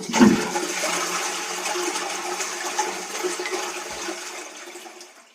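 Rushing water that starts suddenly, strongest in its first moment, then fades away over about five seconds.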